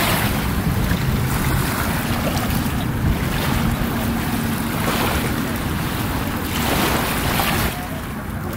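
Small waves lapping and washing over a shallow, rocky beach shoreline, a wash about every two seconds, with wind rumbling on the microphone. A faint steady engine hum from a distant boat runs underneath.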